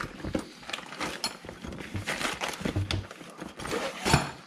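Rummaging through stored items: an irregular run of knocks, clatters and rustles as things are shifted aside, with the loudest knock about four seconds in.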